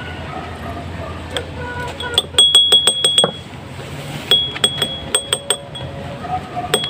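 Metal spoon clinking rapidly against the inside of a drinking glass as liquid is stirred, each strike ringing briefly. The clinks come in two quick runs, about two seconds in and again about four seconds in.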